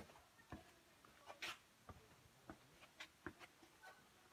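Faint footsteps on a gritty stone and dirt trail: irregular taps and scuffs about two a second, with one longer scrape about a second and a half in.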